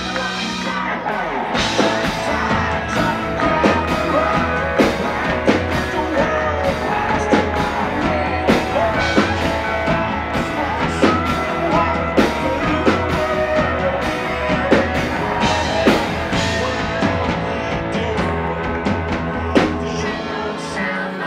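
Live country band playing a song with a male lead singer, acoustic guitar, bass and a steady drum beat.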